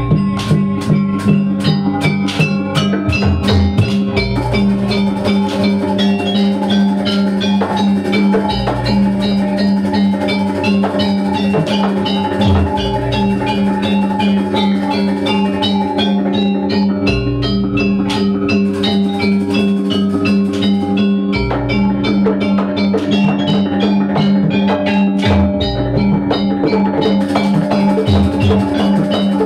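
Jaranan gamelan music: rapid drum and metallophone strokes over sustained pitched tones, with a deep gong stroke about every four seconds.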